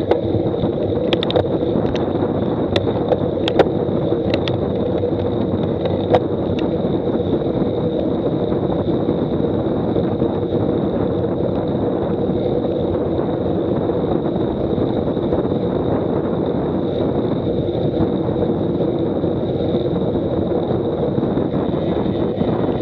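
Steady rush of wind on the microphone and road noise from a road bicycle riding at about 30 km/h on asphalt, with a few sharp clicks in the first few seconds.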